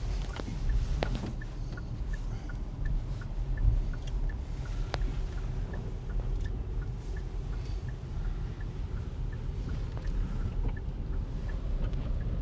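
Car driving, heard from inside the cabin: a steady low rumble of engine and tyre noise, with faint regular ticking and a couple of small clicks.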